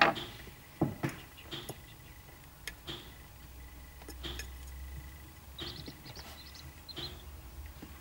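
Corncrake chicks giving short, high peeps every second or so, with a quick flurry of them near six seconds in. Sharp taps and clicks come through as well, the loudest right at the start and just under a second in.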